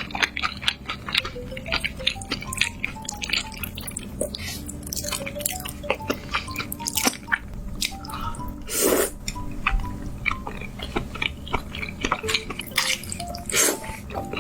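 Close-miked wet mouth-eating sounds: many quick smacks and clicks of chewing, with a longer, louder wet burst about nine seconds in. Soft background music with a simple note-by-note melody plays underneath.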